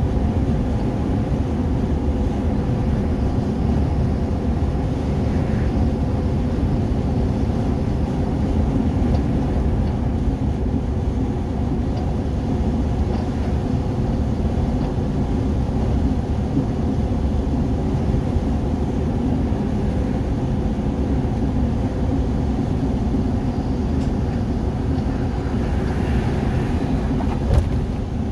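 Steady engine and road rumble heard from inside a vehicle's cabin while cruising on a highway, with a few steady engine tones under the tyre noise. A single short click sounds near the end.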